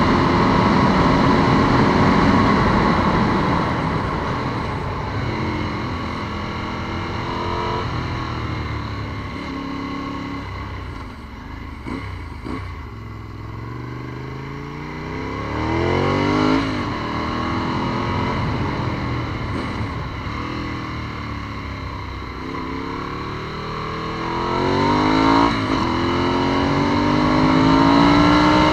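Ducati 748's 90-degree V-twin engine under way, heard from on board: its pitch climbs several times as it accelerates through the gears and drops back off the throttle, with a quieter stretch near the middle, over steady wind noise.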